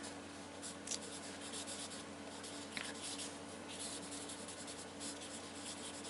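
Felt-tip marker writing on paper: a run of short, faint strokes as letters are drawn.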